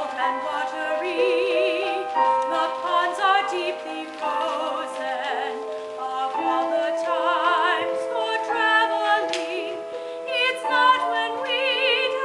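Several singing voices in harmony, mostly high, holding long notes with vibrato: a stage musical's ensemble number.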